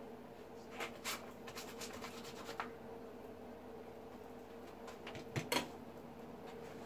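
Steady hum of a MIG welder running idle, with a scatter of light ticks and clicks in the first few seconds. About five and a half seconds in comes a short metal clatter as the MIG torch is set down on the steel bench.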